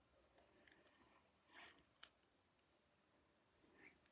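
Near silence, with a few faint clicks and soft rustles of small objects being handled, a little louder about one and a half seconds in.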